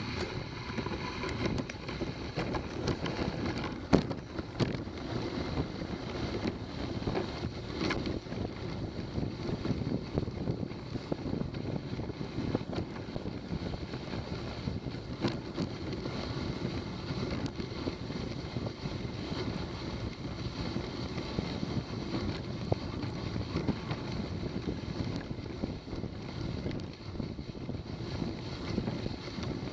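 Dog sled running steadily along a snow trail: a continuous rushing noise of the sled moving over the snow, with wind on the microphone and a few sharp knocks, the loudest about four seconds in.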